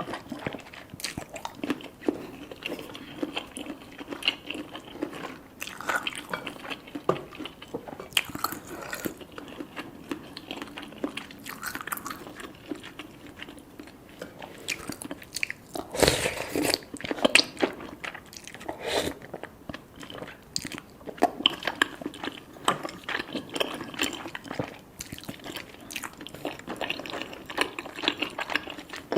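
Close-miked eating sounds: chewing and biting into cheesy rice cakes and fish balls, a steady run of short clicky mouth noises with a louder burst of chewing about halfway through.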